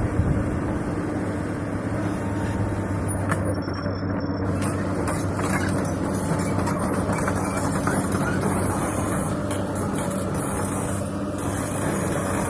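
Excavator's diesel engine running steadily under load with a constant low drone.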